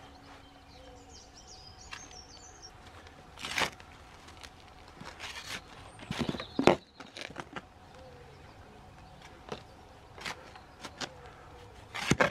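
Spade digging into soil: several separate stabs and scrapes of the blade through the earth, the loudest about six and a half seconds in and another near the end.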